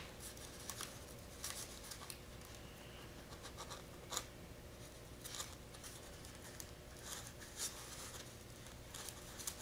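Clear packing tape being pressed and rubbed down onto a foam mold with the fingers: faint, scattered scratching and crinkling with a few short ticks.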